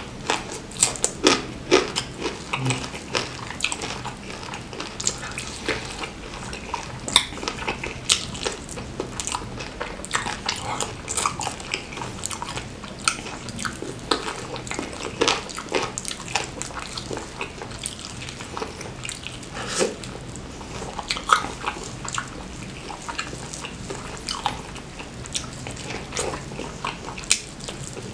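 Close-miked eating of a fried chicken wing smothered in chili sambal: wet chewing, lip-smacking and sucking meat off the bone, in a dense run of irregular smacks and clicks.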